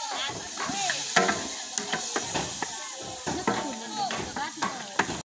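Food sizzling as it fries in a pan while being stirred, with repeated clattering strokes of a utensil. Voices can be heard behind it.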